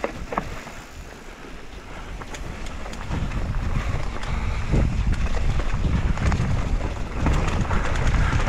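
Wind rumbling on the camera microphone as a downhill mountain bike picks up speed, growing louder a couple of seconds in and then staying steady, with short clicks and rattles of the bike and tyres on rough trail.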